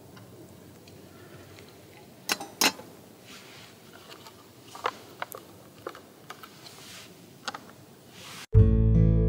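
A few light clicks and taps of a cup noodle's paper lid being pressed down and a metal fork laid on top, with two sharper knocks about two seconds in. Acoustic guitar music starts suddenly near the end.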